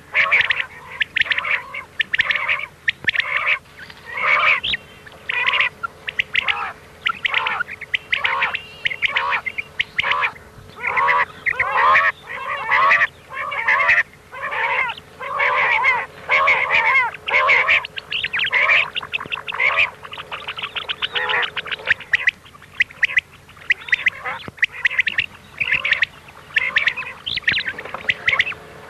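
Recorded quail calls played as a hunting lure: short calls repeated in quick bursts, several overlapping at once, over a faint steady hum.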